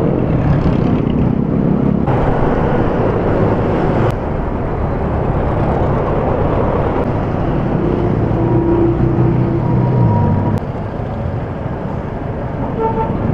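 Busy street traffic heard from a moving bicycle: motorcycles, motor tricycles and a jeepney running close alongside. A louder passage of engine noise drops off sharply about ten and a half seconds in.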